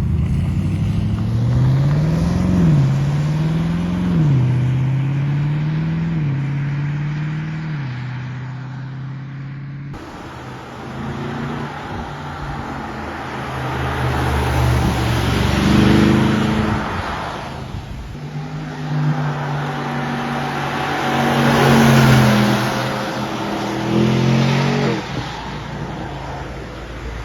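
BMW M850i's twin-turbo V8 on its stock exhaust. At first it is revved in quick blips, the pitch rising and dropping several times. After a cut about ten seconds in it is louder, with three longer climbs and falls in revs and a rushing noise over the engine.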